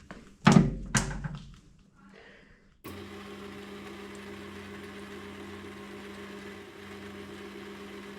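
A few loud knocks from handling at the lathe, then nearly three seconds in the Hare & Forbes AL960B metal lathe switches on and runs at a steady speed with an even motor hum, spinning the freshly trued pulley in the chuck.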